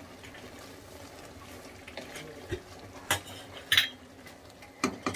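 Wooden spatula stirring minced mutton (keema) in a pot to mix in the spices, with a few sharp scrapes and knocks against the pot, the loudest nearly four seconds in.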